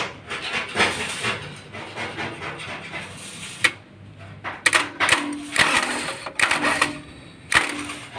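Starter motor on a Mitsubishi 4D34 diesel bumped in several short bursts, each briefly cranking the engine over without it firing. The engine is being inched round to set the number 1 valves for valve-clearance adjustment.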